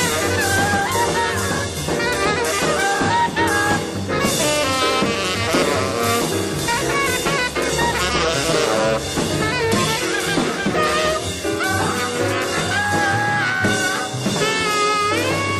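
Free jazz from a 1965 large-ensemble studio recording: saxophones and trumpets playing dense, overlapping lines with wavering, sliding pitches over constant drums and bass.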